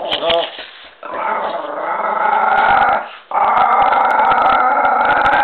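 Miniature pinscher growling and snarling, one long continuous growl that builds in loudness, a brief break about three seconds in, then growling again. A short yip comes just after the start.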